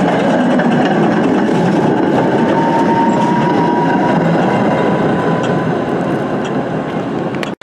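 A Tatra T3 tram set passing close by: a steady rumble of steel wheels on the rails with the running noise of the cars. A thin high whine rises out of it for a few seconds in the middle. The sound cuts off suddenly near the end.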